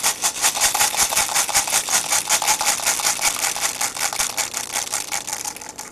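Airsoft BBs pouring into the plastic bottom half of a vending-machine capsule, a rapid stream of small clicks and rattles that eases off near the end.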